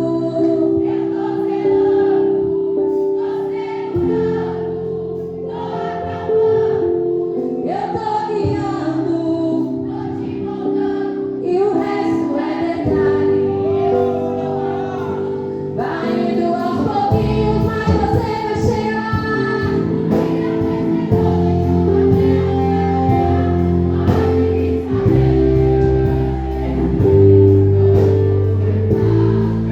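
Live gospel praise music: singers over held chords, with the low end growing much heavier about halfway through as the band comes in fuller.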